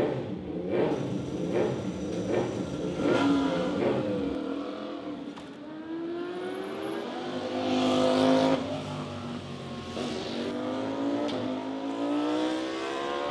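A Kawasaki racing motorcycle's engine revving. It starts with short blips of the throttle about once a second, then climbs in pitch to its loudest about eight seconds in, drops back, and climbs again near the end.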